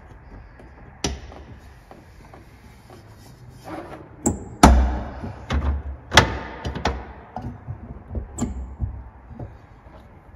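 A door being handled and pushed: a string of clunks and knocks, with the loudest, a heavy thump, about four and a half seconds in, then several more knocks over the next few seconds.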